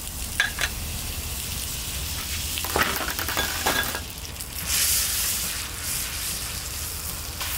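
Butter and oil sizzling on a hot flat-top griddle, with a few short knocks, and a louder swell of sizzle about five seconds in as flour tortillas are laid into the melted butter.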